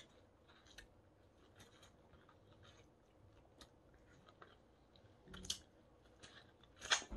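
Faint wet sucking and lip-smacking on a rough-skin lemon wedge, with scattered small mouth clicks and a few louder smacks near the end.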